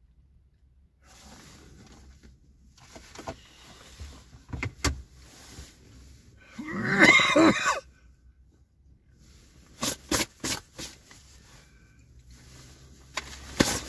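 A man's drawn-out wordless vocal sound, its pitch bending up and down for about a second, midway through. Several sharp clicks follow in the second half.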